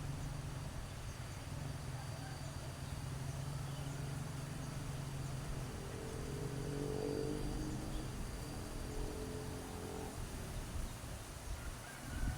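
A motor vehicle's engine running steadily as a low hum, with a stronger engine note that rises a little for a few seconds around the middle.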